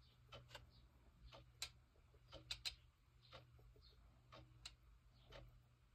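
Faint, irregular light clicks and taps of a watercolor brush against a small mixing dish as Prussian blue paint is worked up with water, over a low steady hum.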